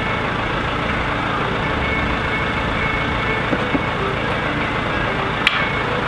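Telehandler engine running steadily, with two light knocks a little past the middle and a sharp click near the end.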